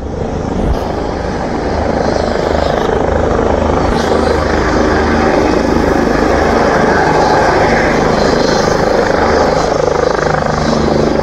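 Bell 429 twin-turbine helicopter lifting off into a low hover, its rotor and turbine noise steady and loud after growing over the first couple of seconds.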